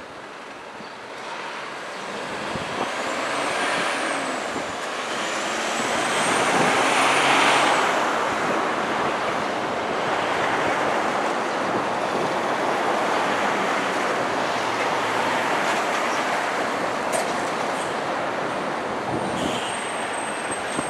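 Road traffic on a wide multi-lane road: cars and trucks driving up and pulling in, the noise swelling to a peak about seven seconds in and then holding as a steady rumble.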